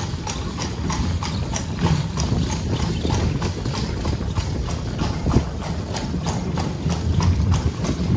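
Shod horse hooves clip-clopping at a walk on a cobbled street while pulling a carriage: a steady rhythm of several sharp strikes a second over a continuous low rumble.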